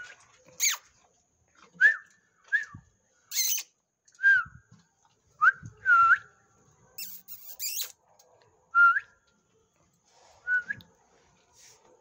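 A dog whining in short, high-pitched, hooked whines that dip and rise again, about eight of them at irregular intervals, while begging for food. A few sharp clicks come in between.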